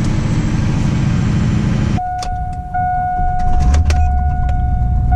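Chevy 2500 HD's Duramax LLY turbo-diesel V8 running, then cutting off about two seconds in. A steady electronic warning tone and a few clicks follow, and the diesel starts right back up and idles.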